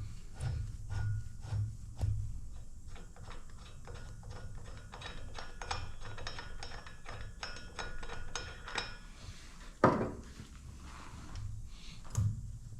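Metal parts and tools being handled on a workbench: rhythmic low thuds at first, then a run of small metallic clinks and rattles, and one loud knock about ten seconds in.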